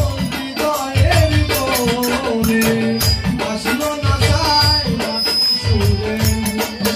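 Music with a shaker or rattle keeping a fast, dense rhythm over a regular low drum beat, with a sliding melodic line on top.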